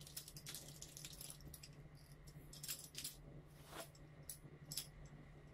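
Scattered light clicks and rattles from the legs and fittings of a folded ring-light tripod stand being handled and spread apart, over a low steady hum.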